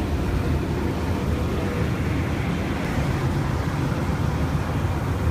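Steady low drone of a light propeller plane's engine and propeller heard from inside the cabin, mixed with rushing air noise, holding level throughout during a low pass.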